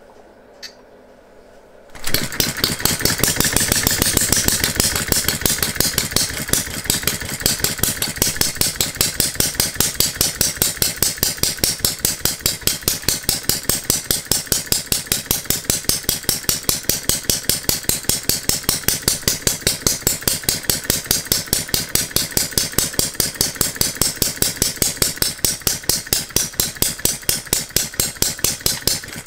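Philip Duclos 'Odds n Ends' model hit-and-miss engine, its piston sealed with a Viton O-ring, catching about two seconds in after its flywheel is spun by hand. It then runs with a steady, rapid beat of about five a second and no misses, because its governor is disabled.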